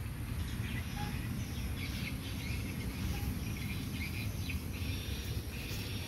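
Steady outdoor background rumble with faint, scattered bird chirps.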